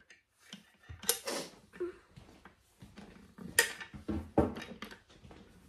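A handful of short metallic clinks and knocks as screws and a small tool are handled against an office chair's steel seat mechanism during assembly.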